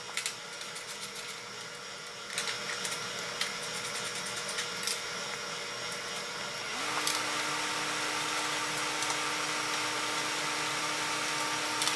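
Light metallic clicks and clatter of hand tools working the bolts on a welder's internal panel. About seven seconds in, a steady machine hum starts, rising briefly in pitch, then holding one even tone.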